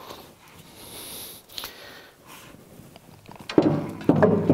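A heavy lathe apron being worked by hand onto its feed rods: a few faint breaths and small rubbing noises, then several loud metal knocks in the last second or so, with a low ringing that carries on after them.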